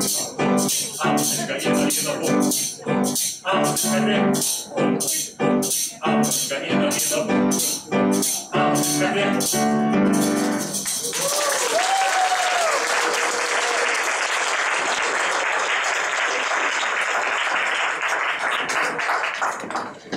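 A live song with a steady beat of about two strokes a second ends about eleven seconds in, and the audience breaks into applause, with a few voices calling out.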